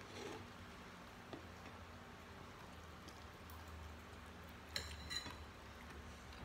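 Quiet table sounds during a meal: a soft click about a second in and two sharper clinks of tableware close together near the end, over a low steady hum.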